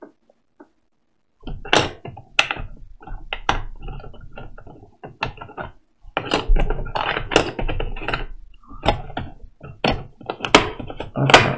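Plastic board-game miniatures being worked out of a tight-fitting plastic insert tray: an irregular run of clicks, knocks and rattles, with a short pause midway and the sharpest knock near the end.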